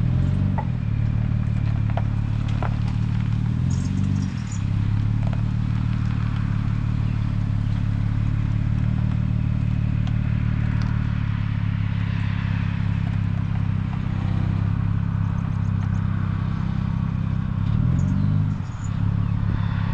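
Truck engine running at a low idle while it is edged up close to the boat trailer. Its pitch rises and falls briefly about four seconds in and again near the end.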